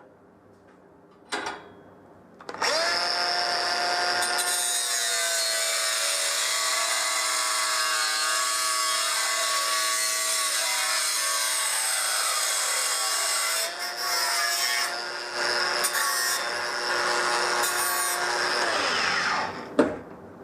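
A power tool starts after a single click and runs steadily with a whine and a dense hiss, dipping briefly a few times, then winds down near the end. It is cutting out the small back-spring piece for a folding knife.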